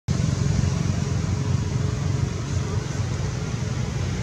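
Steady low rumbling background noise, even throughout with no distinct events, of the kind left by passing traffic or wind on the microphone.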